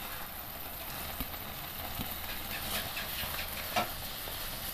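Thick egg masala gravy sizzling in a nonstick pan, a steady hiss with a few soft taps as boiled eggs are set into it.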